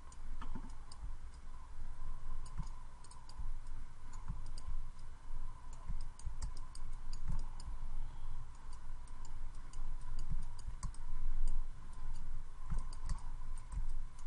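Scattered light clicks of a computer mouse and keyboard as a 3D sculpting brush is worked, holding and releasing Shift between strokes. Soft low thumps and a faint steady tone run underneath.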